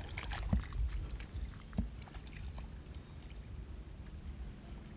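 Low rumble of wind on the microphone, with scattered small clicks from hands digging and handling shellfish in wet mud and shallow water, and two soft thumps in the first two seconds.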